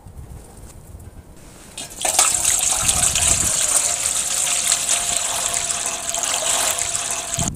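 Water poured in a steady stream into a cast-iron cauldron (kazan), starting about two seconds in and splashing loudly on the water already in the pot until it stops near the end.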